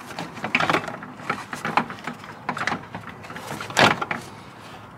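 Plastic radiator fan shroud scraping and knocking against the radiator and engine parts as it is worked down into place by hand, with one sharper knock near the end.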